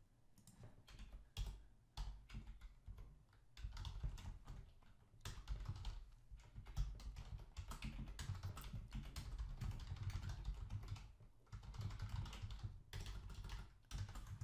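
Typing on a computer keyboard: irregular runs of key clicks with soft low thuds beneath them, broken by short pauses.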